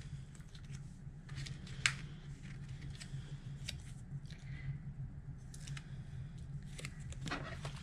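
Faint rustling and light taps of cardstock and a paper butterfly die-cut being handled and pressed down, with scattered small clicks over a steady low hum.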